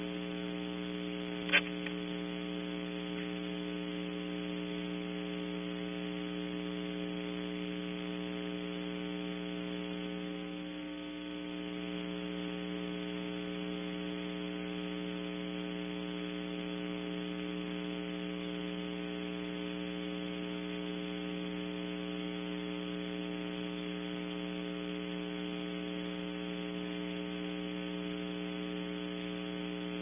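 Steady electrical hum on the nest camera's audio, a stack of even tones, with one sharp click about a second and a half in.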